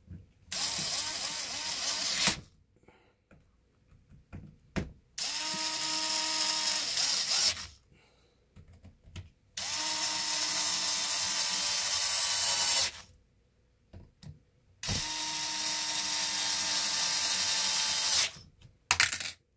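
Cordless electric screwdriver with a long hex bit running in four bursts of two to three seconds each, with a short rising whine as each starts, driving screws into an aluminum chassis plate. Near-quiet pauses with a few light clicks fall between the bursts.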